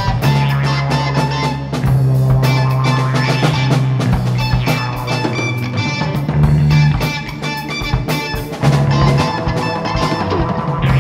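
Instrumental rock band playing: electric guitar over a drum kit and a bass line of held notes that change pitch every second or two. No vocals.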